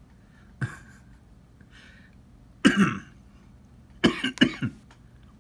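A man coughing: one cough, then a quick run of two or three more about a second and a half later.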